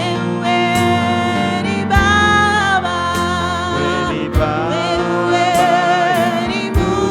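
Gospel worship music: a voice singing long, sliding notes over a band, with a low drum hit about every two and a half seconds.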